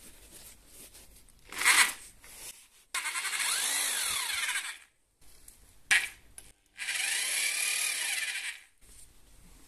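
Katana 950 W rotary hammer, fitted with an ordinary drill chuck and bit, spinning free without load in forward rotation. A short blip of the trigger comes first, then a run of about two seconds that speeds up and winds down, and then the same again.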